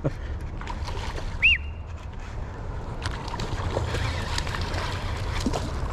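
Low, steady wind rumble on the camera microphone, with one short high whistle that rises and falls about a second and a half in.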